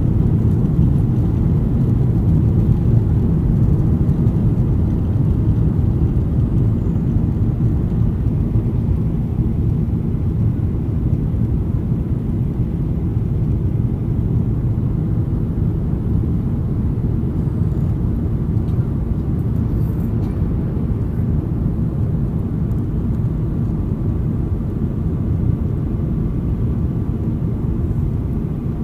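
Inside the cabin of a Boeing 737-800 climbing out after takeoff: a steady low rumble from its CFM56 turbofan engines and the rushing air, easing off slightly over the span.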